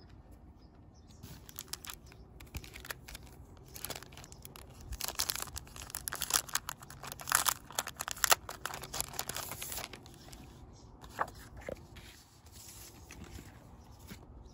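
Clear plastic card sleeve crinkling and crackling as it is torn open and a folded pop-up greeting card is slid out. The crackling comes in a dense run starting a few seconds in and dies down after about six seconds, with a few light ticks afterwards.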